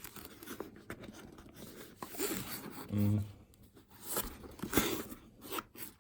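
Packaging being pulled and torn at by hand while struggling to open it: irregular rustling and scraping, with a short low hum from the person about halfway through.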